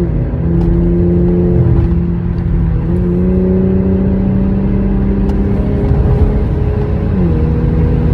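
Infiniti Q60's VR30 twin-turbo V6 running through an aftermarket catback exhaust and downpipes, with a steady drone over a deep rumble while driving. The pitch steps down, then up, then down again as the revs change.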